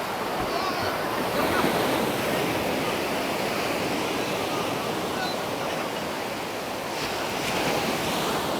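Sea waves washing up on the beach: a steady rush of surf that swells a little about two seconds in and again near the end.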